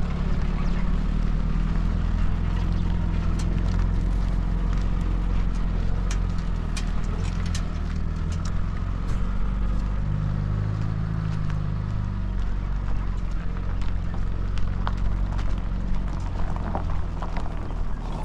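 An engine running steadily at a low, even pitch, with scattered light clicks and knocks over it.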